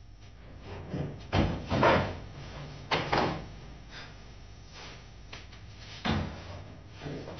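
A few knocks and thumps of things being handled, the loudest about two seconds in and another about six seconds in.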